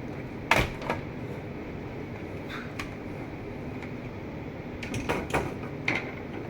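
Scattered light clicks and knocks of a laptop being handled and worked on, over a steady background hum: one sharp knock about half a second in, a couple of faint clicks in the middle, and a small cluster of clicks near the end.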